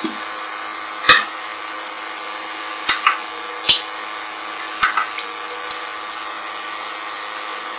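Semolina (suji) dahi vadas deep-frying in hot oil in a steel kadai: a steady sizzle with sharp spitting pops about once a second.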